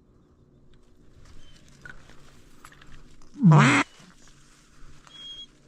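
A single loud mallard-style duck quack, about half a second long, a little over three seconds in, against a faint low hum and a few small ticks.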